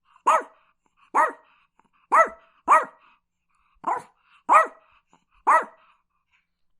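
A dog barking, seven short barks about a second apart, two of them in quick succession about two seconds in.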